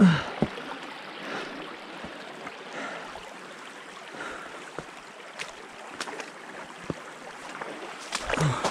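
Shallow river water running steadily, with scattered knocks and splashes of footsteps as a person steps along a wooden plank and into the shallows. A short grunt falling in pitch opens it, the loudest sound, and a brief mutter of voice comes near the end.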